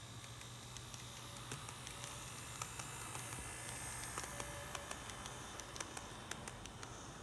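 N-gauge model train running across a plastic truss bridge: a faint running hiss and low motor hum, with scattered light clicks of the wheels over the rail joints, busiest in the middle as the train passes.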